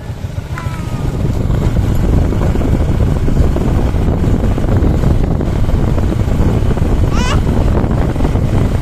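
Motorcycle engine running while the bike is ridden, with heavy wind rumble on the microphone; the sound builds over the first two seconds, then holds steady.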